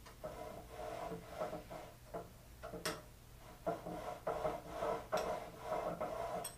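Metal parts of a tool and cutter grinder being worked by hand: a run of rubbing, scraping strokes with a slight metallic ring, and a few sharp clicks.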